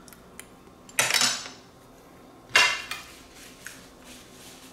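Metal fork clattering against a plate: two loud clinks about a second and a half apart, each with a short ringing tail, after a faint tick.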